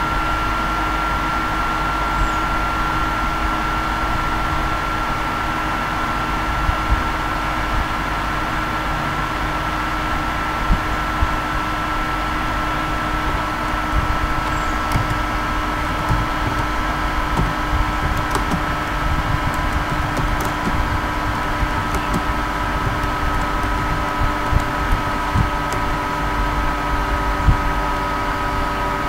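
Steady machine hum with several steady whining tones, the highest sinking slightly over time. Faint keyboard clicks come through now and then in the second half.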